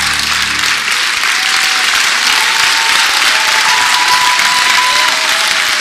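Large theatre audience applauding steadily, with the last of the song's backing music fading out in the first second.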